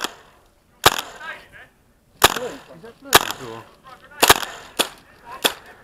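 Airsoft rifle firing single shots: about seven sharp cracks, spaced unevenly about a second apart.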